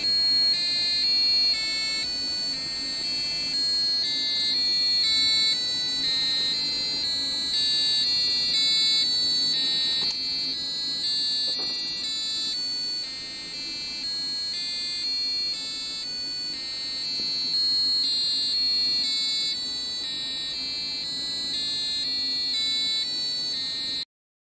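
A passive buzzer driven by an ESP32 through a transistor, beeping out a tune of short notes whose pitch steps up and down several times a second. It cuts off near the end.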